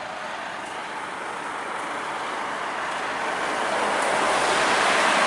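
Road traffic going by: the tyre and road noise of a passing vehicle swelling steadily louder as it approaches.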